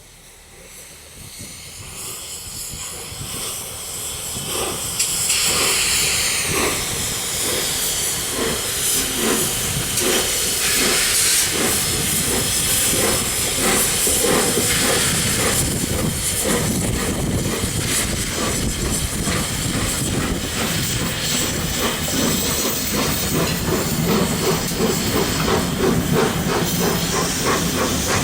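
Steam locomotive, the A1 Peppercorn Pacific Tornado with its three cylinders, approaching and passing close by: loud steam hiss with a rhythmic run of exhaust beats, swelling over the first few seconds and then staying loud, the beats coming quicker toward the end.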